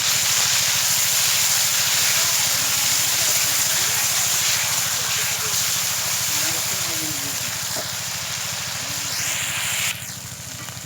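Freshly ground wet spice paste sizzling and hissing hard in hot oil in a cooking pot. The hiss drops off sharply near the end.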